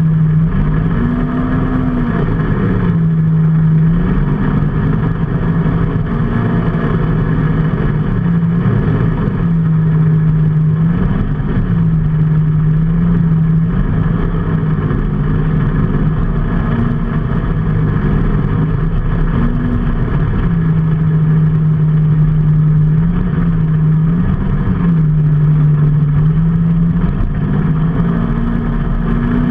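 A vehicle's engine running on the move, its note holding steady and then rising and falling again and again with the throttle, over steady road and wind noise.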